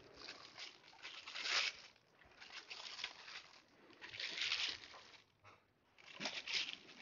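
Clear plastic bag around a solar charge controller crinkling as it is handled, in about four short bursts of rustling.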